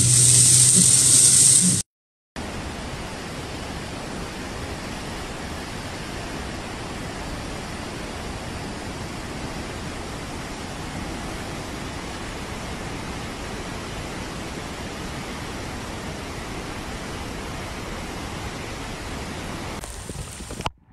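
Heavy rain with a vehicle engine humming underneath for about two seconds, then cut off abruptly. After a brief silence comes a long, steady, even hiss of noise that does not change, giving way near the end to a different, quieter wind-and-rain sound.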